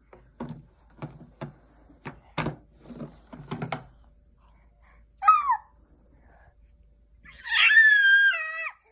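Baby of about eight months knocking a plastic straw cup against a high-chair tray, about eight short knocks in the first few seconds. Then come two happy high squeals: a short falling one, and near the end a longer, wavering one.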